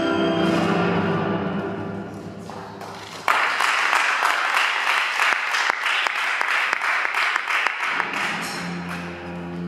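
Audience applause breaks out suddenly about three seconds in and lasts about five seconds, between passages of background music; it greets the reveal of a torn newspaper held up whole again.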